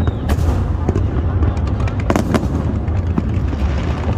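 Fireworks exploding in rapid succession: a string of sharp bangs, several close together about two seconds in, over a continuous low rumble of booms.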